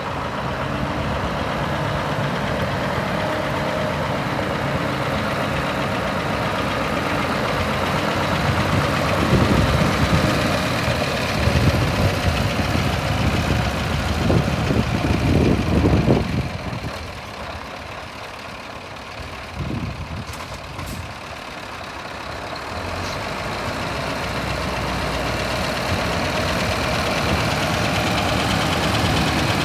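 Scania R560 truck's V8 diesel engine running, mostly at a steady idle, with a louder, rougher rumble for several seconds about a third of the way in before it settles back.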